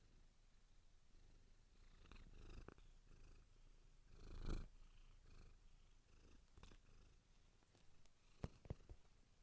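Domestic cat purring faintly, with one louder swell about four and a half seconds in and a few sharp clicks near the end.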